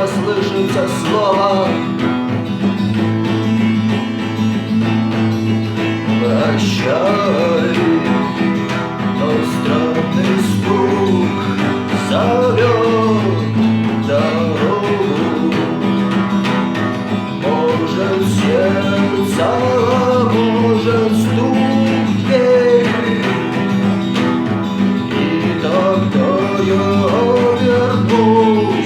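Guitar strummed in a steady rhythm, with a melody line bending over the chords.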